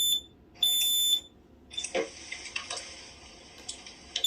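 Kidde KN-COSM-IB combination smoke and carbon monoxide alarm sounding its piezo horn: a shrill beep about half a second long, about a second after the previous one, in the alarm's beep pattern. It is followed by about three seconds of its recorded voice message through a tiny speaker, and a run of rapid short beeps near the end.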